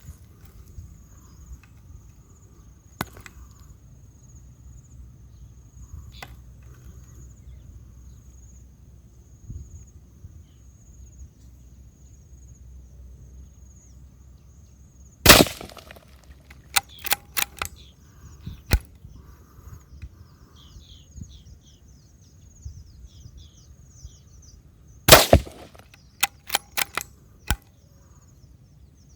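Two shots from a CZ 452 .22 LR bolt-action rifle, about ten seconds apart, each a sharp crack followed by a quick run of four or five quieter clicks.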